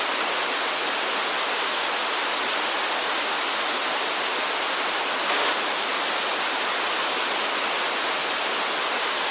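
Steady rushing hiss of water, even and unbroken, with a slight swell about two-thirds of the way through.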